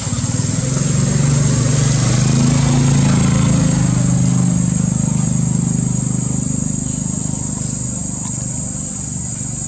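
A motor vehicle's engine running nearby: a steady low drone that grows louder over the first few seconds and then slowly fades. A continuous high-pitched insect buzz runs through it.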